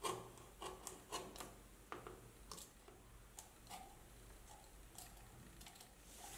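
Small clicks and scratches of a fine craft knife working along the edge of a leather lining against a thin brass case, loudest in the first two seconds, then softer ticks as a needle is worked into the leather at a corner.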